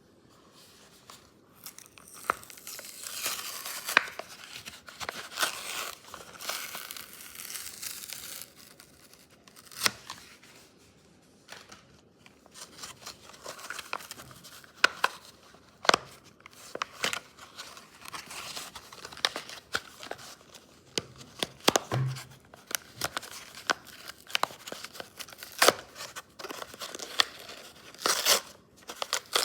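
Packaging of a Matchbox die-cast toy car being handled and opened at close range: crinkling and tearing of card and plastic, broken by many sharp clicks and taps.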